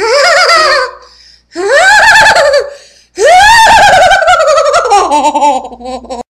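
A child's voice making three long, wavering ghost wails, 'ooo'-like; the last one is about three seconds long, slides down in pitch and stops abruptly.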